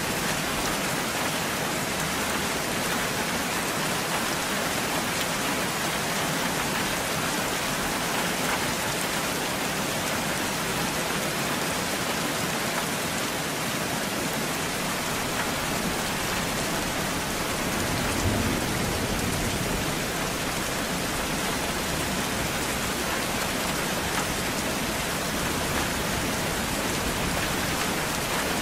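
Steady, heavy rainfall: an even, dense hiss of rain on surfaces. About two-thirds of the way through, a low rumble of thunder swells up beneath the rain.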